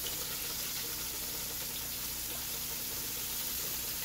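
Coated yellowtail snapper fillets deep-frying in a pot of hot oil: a steady bubbling sizzle with faint crackles.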